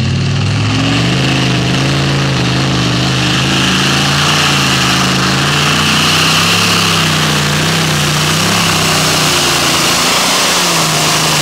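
Modified-class pulling tractor's engine running hard under full load as it drags a weight-transfer sled down the pulling track. It is loud and continuous, its pitch wavering up and down throughout and sagging a little near the end.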